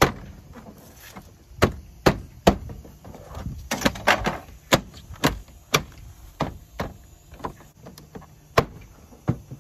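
Plastic clips of a Raptor-style grille snapping into the front of a Ford Transit as the grille is pressed home by hand: a string of about a dozen sharp snaps and knocks at irregular intervals.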